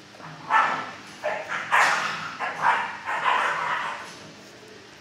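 Dog barking, about five barks in quick succession, the last one drawn out a little longer.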